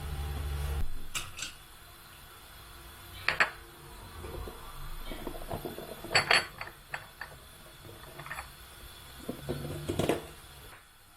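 Dishes and cutlery being handled: scattered clinks and knocks, a few louder ones among lighter taps. A low steady hum stops about a second in.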